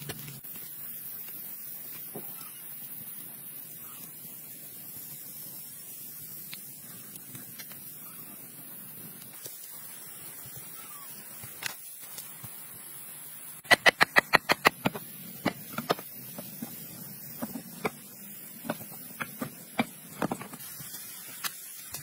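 Handfuls of wet clay slapped and pressed onto a bamboo-frame mud wall: scattered sharp slaps and taps over a steady background hiss. A little past halfway comes a quick run of about a dozen sharp clicks, the loudest sound here.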